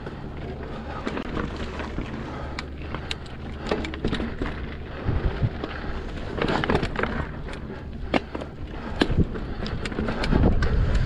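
Mountain bike rolling over rough rock, with frequent sharp clicks and knocks from the tyres and bike over a steady low rumble; the clatter gets heavier about two-thirds of the way in and again near the end.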